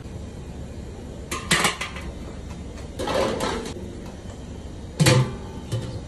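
Large stainless steel stockpot, wire mesh basket and lid clanking as they are handled. There is a clatter about a second and a half in and a rougher scraping clank around three seconds. The loudest is a clang with a dull thud near five seconds, as the steel lid is set down on the pot.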